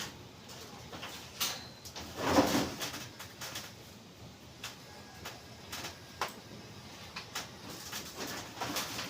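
Irregular knocks and clatter of hard objects, with a louder scraping knock about two and a half seconds in.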